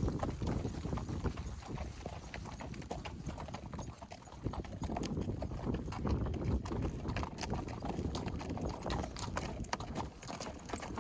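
Horses walking along a trail, their hooves clip-clopping in an uneven run of knocks and clicks.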